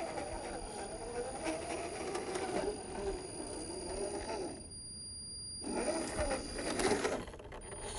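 RC crawler's small electric motor and gearbox whining, the pitch rising and falling with the throttle. The whine stops about four and a half seconds in and starts again a second later.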